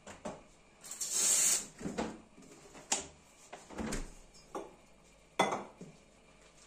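Irregular clatter of espresso gear and crockery being handled: a string of short knocks and clinks, the sharpest about five seconds in, with a brief hiss about a second in.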